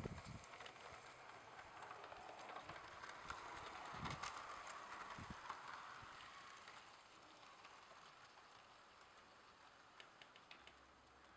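Faint running noise of an OO gauge model train, a Metropolitan electric locomotive model hauling Mk2 coaches, rolling past on the track: it swells to a peak about four seconds in, then slowly fades as the train draws away. There are a couple of low thumps and, near the end, a few light clicks.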